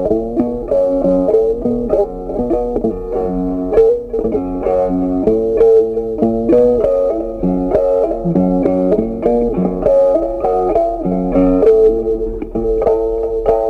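Instrumental background music: a tune of short, quickly changing notes.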